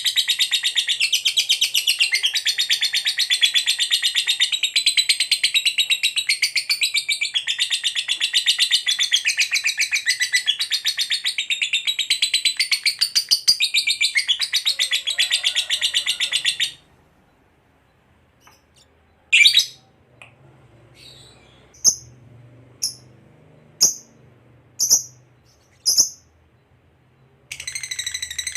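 Lovebird giving a long, very fast rattling trill (the "ngekek" chatter) that breaks off after about seventeen seconds. After a pause come about six single sharp chirps roughly a second apart, and the trill starts again near the end.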